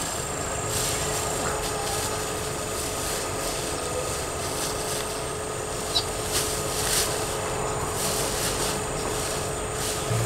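Steady outdoor background noise with brief rustling and scraping sounds every second or two, and a single small click about six seconds in.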